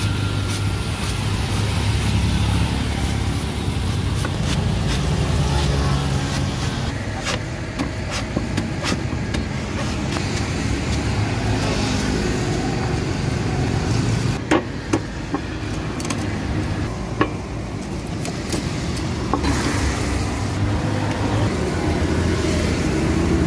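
Steady rumble of road traffic, with sharp knocks from a cleaver striking and trimming a green coconut on a wooden chopping stump, several of them close together about two-thirds of the way through.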